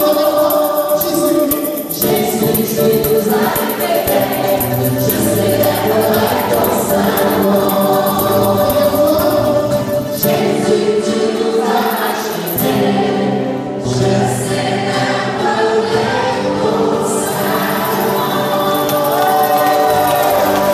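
A small group of men and women singing together into microphones, a live choral worship song that carries on steadily throughout.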